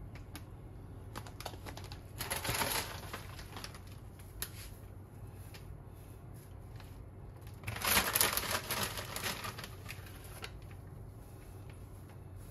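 A bag of shredded nori crinkling as hands take nori from it: two rustling bursts, about two seconds in and again near the eight-second mark. Light ticks and taps in between as the nori is sprinkled over bowls of rice.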